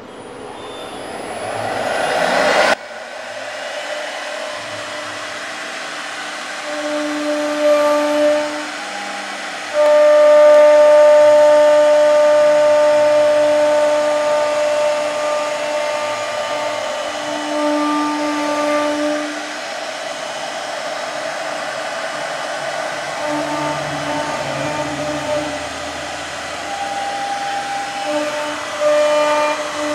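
CNC wood router's spindle motor rising in pitch over the first few seconds, then running with a steady whine as its bit cuts a groove into a wooden block. The cutting grows louder about ten seconds in.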